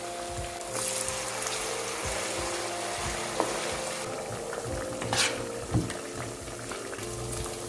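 Battered sweet potato strips deep-frying in hot oil, sizzling steadily. A few sharp clicks come a little past halfway, as the pieces are turned with a metal utensil in the pan.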